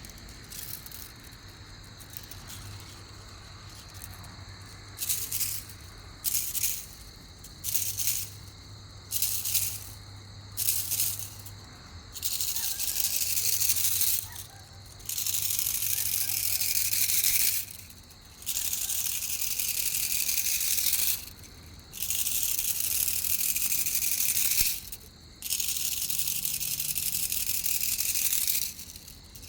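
Loud, high-pitched insect buzzing in repeated calls, like a cicada: short bursts about a second long for the first dozen seconds, then longer calls of two to four seconds each, broken by short pauses.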